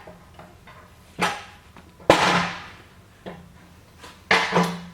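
Steel pallet jack being tipped over onto its back: a series of metal clanks and bangs as it is handled and set down, the loudest about two seconds in and ringing on briefly.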